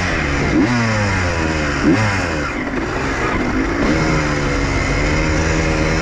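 Honda CR125 two-stroke single-cylinder dirt bike engine under way, revving up sharply twice in the first two seconds, dropping back between, then pulling at a steadier pitch.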